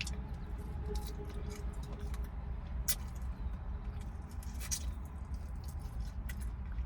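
Close-up eating sounds: scattered wet mouth clicks and smacks while chewing fried pork chop, over a steady low hum.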